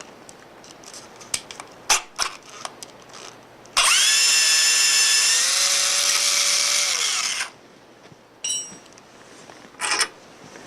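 A cordless drill-driver runs for about three and a half seconds as it backs out a screw held by a wrench on its nut, its motor whine stepping up in pitch and then dropping before it stops. Light clicks and knocks of the hardware come before it, and a brief metallic clink follows.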